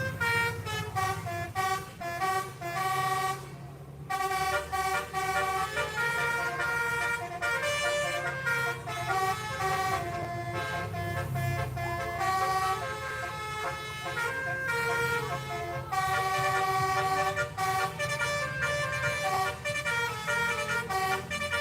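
Indonesian bus 'telolet' multi-tone horn playing a long melody of short notes at changing pitches, over the steady low hum of the bus engine.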